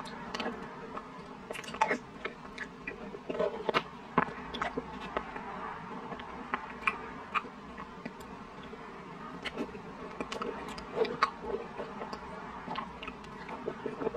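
Close-miked, wet mouth sounds of eating soft chocolate lava cake: sticky smacking and lip clicks, irregular, several a second.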